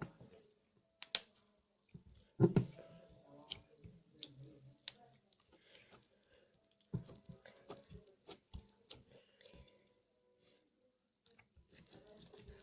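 Slime being squished and worked by hand, giving irregular sticky clicks and small wet pops, the loudest about a second in, at two and a half seconds and around seven seconds.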